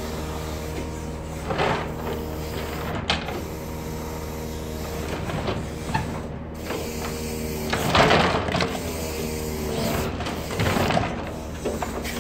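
Grapple truck's engine and hydraulic crane running with a steady drone while the grapple lowers onto and grips stacked cardboard boxes, giving scattered crunches and scrapes, loudest about eight seconds in.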